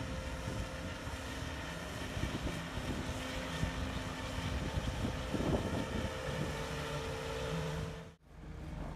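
Engine of a Hydratrek tracked amphibious vehicle running steadily as it drives, with a steady engine note. The sound cuts out sharply about eight seconds in and then picks up again.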